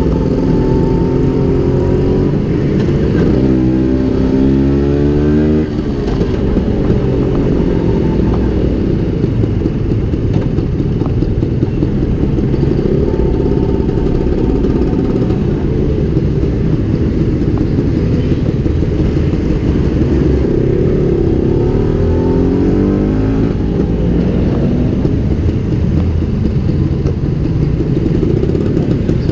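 Vespa PX150's two-stroke single-cylinder engine with a SIP Road 2.0 exhaust, heard from the saddle while riding. It pulls up in pitch about three seconds in, drops suddenly just before six seconds as it shifts up, holds steadier, then revs up again around twenty seconds in.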